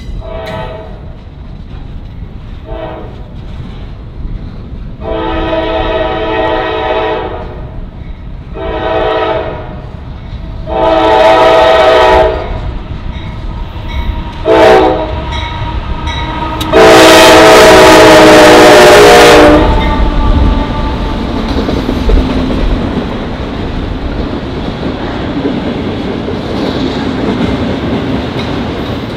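Norfolk Southern diesel freight locomotive sounding its air horn in a series of seven blasts, short and long, the last one the longest and loudest as the locomotive passes, signalling its approach to a grade crossing. Then the steady rumble and clickety-clack of the train's autorack cars rolling by.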